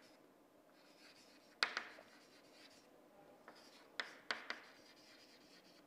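Chalk writing on a chalkboard: faint scratching strokes with a few sharp taps of the chalk on the board, one about a second and a half in and three close together around four seconds in.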